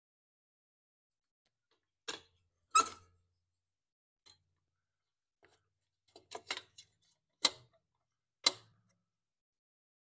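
Scattered sharp clicks and taps of a lawn mower engine's carburetor and governor linkage being handled and fitted by hand. There is a quick run of clicks about six seconds in, and a loud single click near the end.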